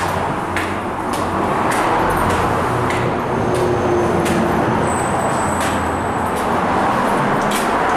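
Steady noise of nearby road traffic, with footsteps on the stairs and landing about every half second to second.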